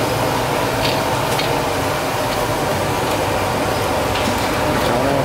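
Steady din of a busy street-food noodle shop: a constant low hum with scattered sharp clinks of bowls and steel utensils, and faint chatter near the end.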